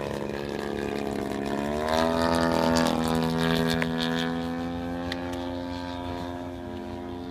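Radio-controlled model airplane's engine and propeller running with a steady buzz. Its pitch rises about two seconds in as the throttle opens, then holds while the sound slowly fades.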